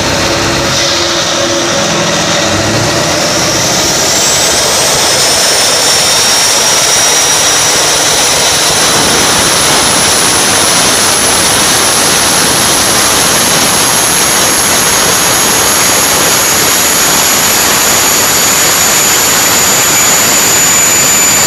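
Ford 7.3 Powerstroke turbo-diesel with a big turbocharger running hard under load on a dyno: a loud roar with a high turbo whistle that rises about three to four seconds in and then holds, creeping slowly higher as the pull goes on.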